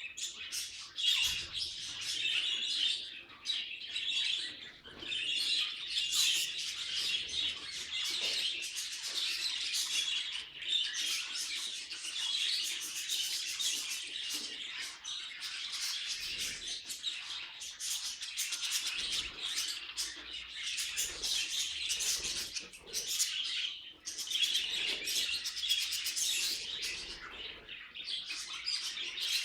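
Budgerigars chirping and warbling in a dense, continuous stream of rapid, high chirps.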